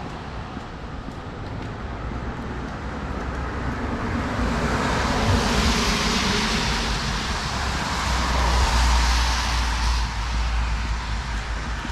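Road traffic on a rain-wet street: a vehicle passes with tyre hiss that builds from about four seconds in and is loudest around eight to nine seconds, over a low rumble.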